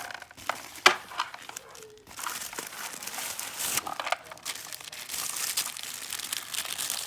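Paper packaging crinkling and rustling as a handbag is unwrapped, with many small crackles and one sharp click about a second in.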